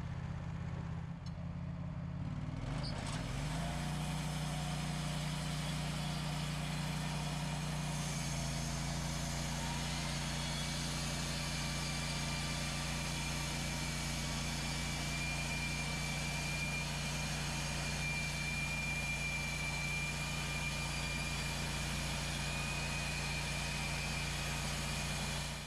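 Portable sawmill's gas engine running steadily, its speed rising about three seconds in, with a thin high whine joining later. The sound cuts off abruptly at the end.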